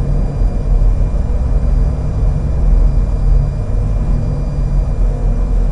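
Steady low rumble with a few faint, steady high hums, the continuous background bed of a police-station ambience.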